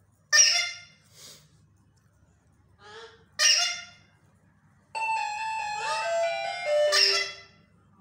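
Alexandrine parakeets giving short, loud, harsh squawks: three strong ones and a few fainter ones. From about five seconds in, a held sound of several steady tones that step down in pitch runs for about two and a half seconds under the last squawk.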